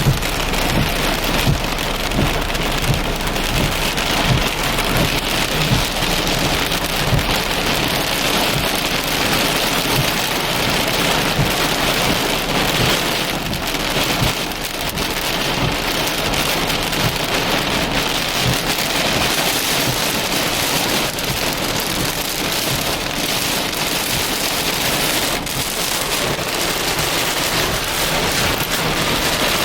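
Heavy thunderstorm rain falling steadily: a dense hiss with many small drop impacts, the impacts thicker in the first half.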